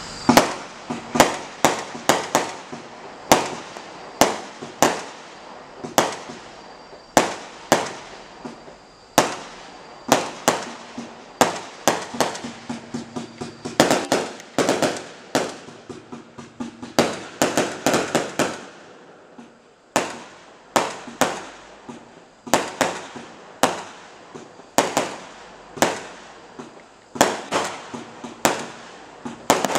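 A 68-shot firework cake firing its shots in quick succession: sharp bangs about two a second, each dying away fast, with a short lull about two-thirds of the way through.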